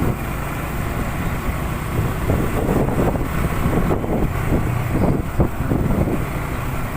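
Honda CB150R's single-cylinder engine running at a steady pace while riding, with wind rushing over the microphone.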